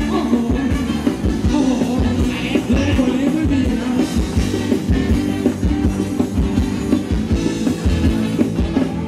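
A live Thai ramwong dance band playing, with a steady drum beat under the melody.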